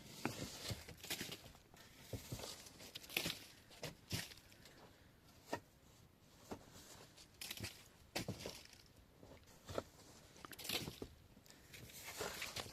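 Irregular rustling with scattered sharp knocks and clicks, roughly one every second or so.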